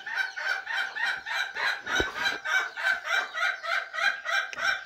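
A broody hen clucking in a rapid, even run of short clucks, about four a second.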